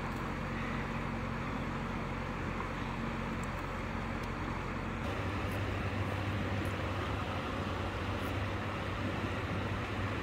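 An engine running steadily, a low hum over a constant background noise, its tone shifting slightly about five seconds in.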